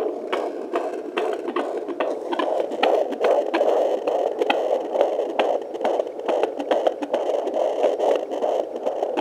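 Fetal heartbeat played through the speaker of a Sonoline-C 2 MHz pocket fetal Doppler: a rhythmic pulsing of about two beats a second, around 136 beats a minute. It grows clearer a few seconds in as the probe settles on the baby.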